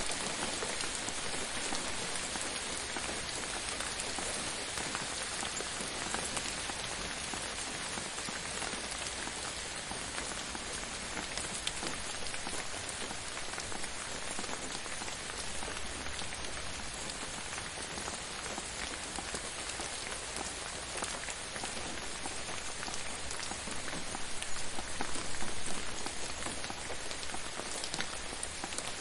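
Steady gentle rain falling, an even patter of drops with fine individual drop ticks, swelling slightly a few seconds before the end.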